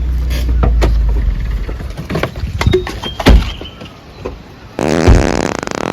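A car's engine idling low stops about half a second in, followed by scattered clicks and knocks of a car door being opened and handled. About five seconds in, a louder, dense rasping noise starts.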